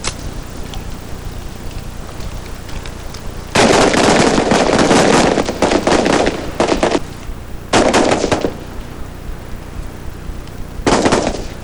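Howa Type 89 5.56 mm rifles firing rapidly in bursts of sharp shots: a long run of shots starting a few seconds in, a short burst, then another near the end.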